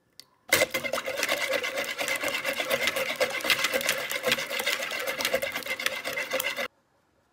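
Electric hand mixer running steadily, its beaters whisking eggs and melted butter in a bowl. It switches on about half a second in and cuts off suddenly near the end.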